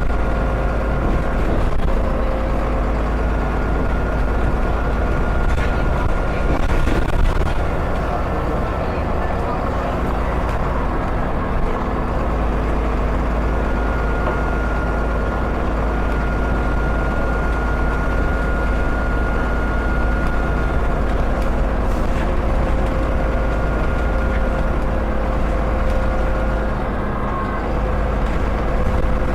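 Dennis Enviro 400 double-decker bus under way, its diesel engine droning with a high turbocharger whistle that comes and goes over the rumble.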